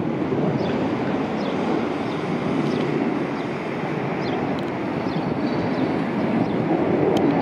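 A McDonnell Douglas F-15C Eagle's twin turbofan jet engines at takeoff power, a steady deep roar with a slight rise near the end.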